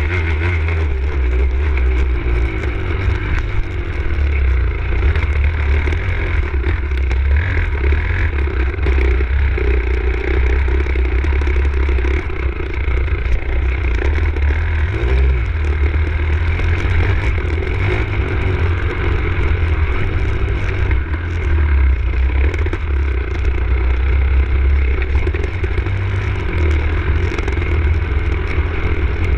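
Enduro motorcycle being ridden over rough dirt track: the engine runs continuously, its note rising and falling with the throttle, over a heavy low rumble.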